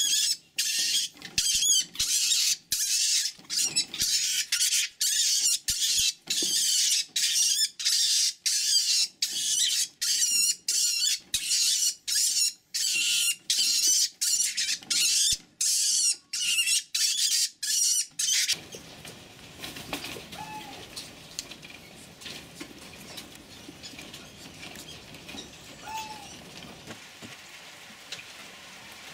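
A farmed mink screeching in a fast series of shrill cries, about two a second. They stop abruptly about eighteen seconds in, leaving a faint steady hiss with two brief faint squeaks.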